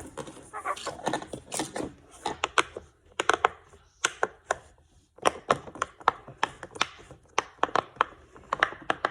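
Silicone pop-it fidget toy's bubbles being pressed in, a long run of sharp pops at an uneven pace.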